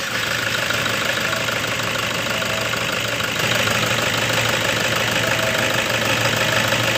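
A 2009 Toyota Innova's four-cylinder turbodiesel idling steadily while it runs on a purge cleaner drawn from a bottle into the supply pump, to clean the injectors.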